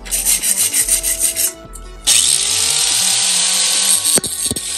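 Light scraping and rustling, then about two seconds in an angle grinder starts, its whine rising as the disc comes up to speed, and cuts into a steel bracket clamped in a vise for about two seconds before stopping.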